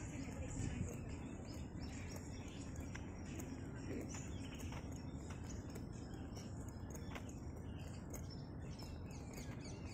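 Outdoor ambience of small birds chirping over a steady low rumble.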